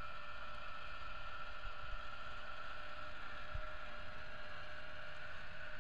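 Small antenna rotator motor whining steadily as it turns the magnetic loop antenna, with a low wind rumble on the microphone.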